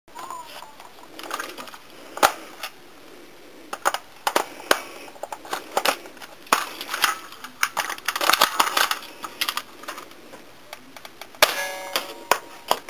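Irregular clicks, clacks and knocks of hard plastic and metal parts being handled, with one ringing metallic clang near the end.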